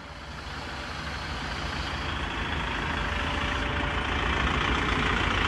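Kubota tractor's diesel engine idling steadily, growing louder as it comes closer.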